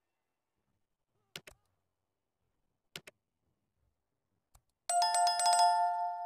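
Subscribe-animation sound effects: two mouse clicks about a second and a half apart, then a bell chime of several ringing tones about five seconds in that rings on and fades.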